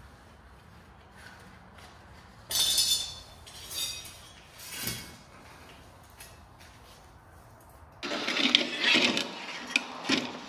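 Intermittent clinks and clatter of hard objects being handled: a short burst about two and a half seconds in, two softer ones after it, then busier, louder clatter over the last couple of seconds.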